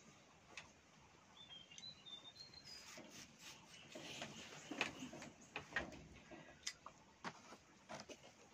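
Faint rustling of a fabric fishing-rod bag and clicks and knocks of the rod being handled as it is drawn out and held up, loudest about halfway through. A few faint bird chirps sound in the first few seconds.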